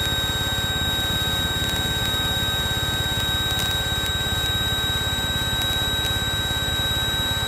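Light aircraft's engine running steadily at full takeoff power during the takeoff roll, heard from the cockpit as a low, fast-pulsing drone. A thin, steady high whine sits over it.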